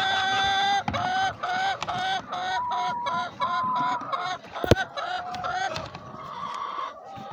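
A hen sitting on eggs in a nest box clucks as a hand reaches under her for the eggs. She gives one drawn-out call, then a run of short clucks about three a second. One sharp knock comes a little before the clucking stops.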